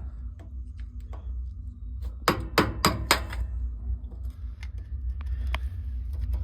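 Hammer striking metal, working the crumbled remains of a steam boiler's discharge valve out of its fitting: four quick, sharp blows a little over two seconds in, with lighter knocks around them, over a steady low hum.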